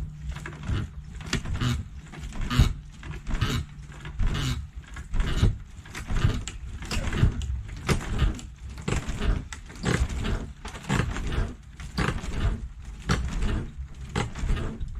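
Demolition of a wooden building: irregular knocks, bangs and cracking of boards, about two a second throughout.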